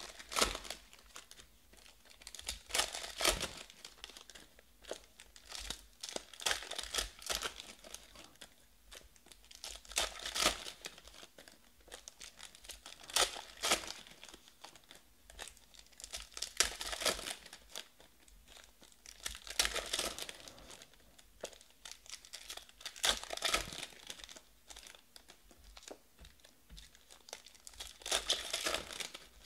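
Foil wrappers of Panini Status basketball card packs crinkling and tearing open in repeated crackly bursts every few seconds, with sharp clicks and slides as cards are thumbed through between the hands.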